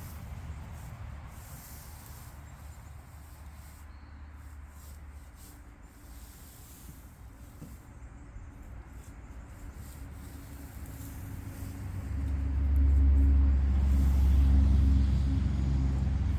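A low engine rumble that grows louder about twelve seconds in, taking on a steady hum.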